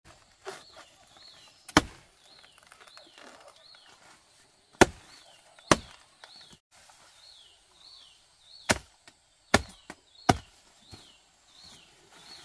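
Machete blade chopping into a banana plant's soft trunk: about six sharp chops at uneven intervals as the trunk is cut through. A high, falling chirp repeats about twice a second in the background.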